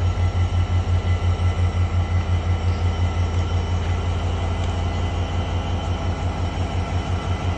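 Train's diesel engine running with a steady low throb, about five or six pulses a second, and a thin steady whine over it.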